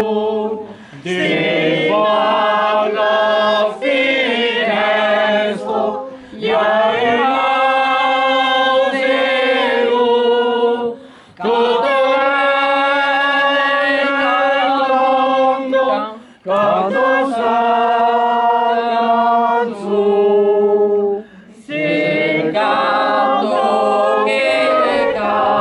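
A small group of men and women singing together unaccompanied, holding long notes in phrases about five seconds long with brief pauses for breath between them.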